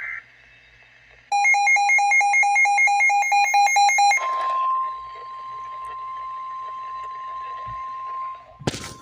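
Emergency alert tones: about three seconds of rapid electronic beeping, several beeps a second. This gives way to a steady single-pitched tone near 1 kHz, like the weather-radio warning alarm tone. A sharp click comes near the end.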